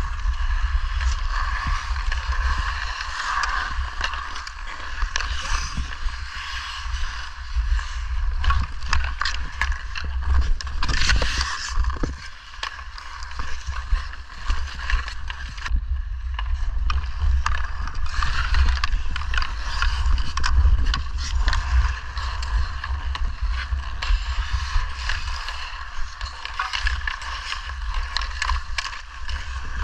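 Ice hockey skates carving and scraping on rink ice, with frequent sharp clacks of sticks and puck, over a steady low rumble of wind buffeting an action camera's microphone.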